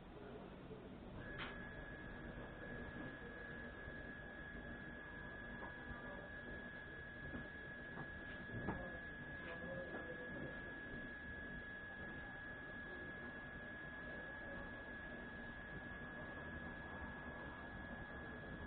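A steady high-pitched tone comes in about a second in and holds unchanged, with a fainter, higher tone above it, over a faint hiss. A small click sounds near the middle.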